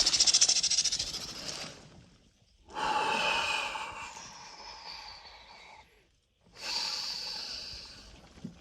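A man's deep, forceful breathing while sitting in near-freezing ice-bath water: three long breaths, each starting loud and fading away, the first with a rapid flutter.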